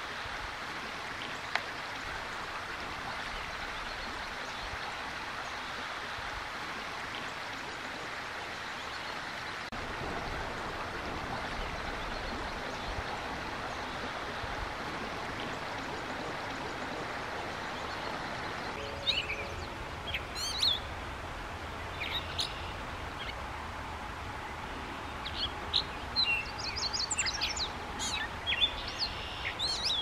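Steady rush of flowing river water; about two-thirds of the way in it drops away and a Nashville warbler sings several short phrases of high, thin notes, with a quick run of notes near the end.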